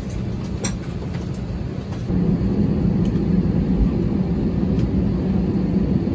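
Steady low rumble of an Airbus A320 cabin parked at the gate, getting louder about two seconds in, with a few sharp clicks through it.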